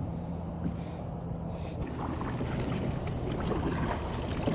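Water sloshing against a plastic kayak hull and wind on the microphone, with kayak paddle strokes splashing in the water in the second half.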